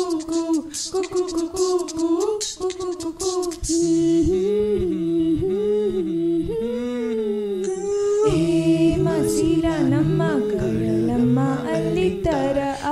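Mixed-voice a cappella group singing in harmony with no instruments. For the first few seconds vocal-percussion clicks and hisses run under the sung melody, then the voices hold hummed chords over a sung bass line, turning into a fuller multi-part texture about eight seconds in.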